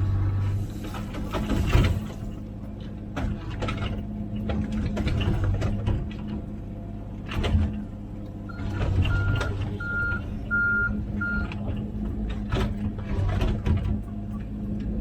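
Komatsu PC16 mini excavator's diesel engine running steadily under work, with scattered metal clanks. Partway through, a backup alarm sounds five short beeps.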